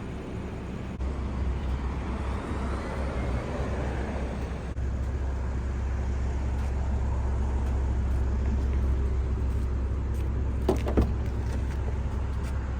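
BMW M340i's engine running steadily, a low hum that gets louder about a second in and again about five seconds in.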